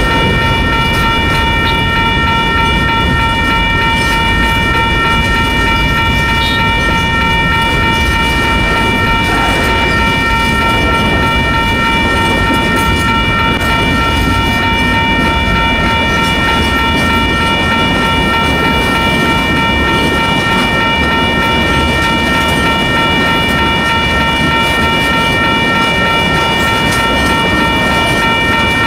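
Freight train of boxcars and tank cars rolling past: a steady, loud rumble of wheels on rail, with a steady high-pitched whine over it.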